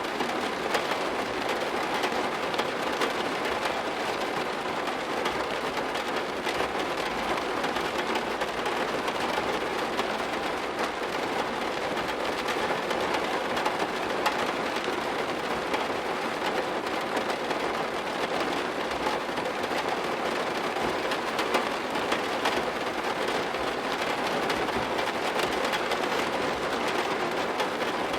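Steady rain falling on a surface: an even, unbroken hiss of many drops with a faint crackle, without changes.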